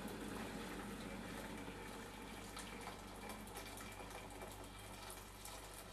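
Freshly boiled water poured from a kettle into a stainless steel saucepan, a steady splashing pour that slowly gets quieter as the pan fills, to soak off burnt-on sugar.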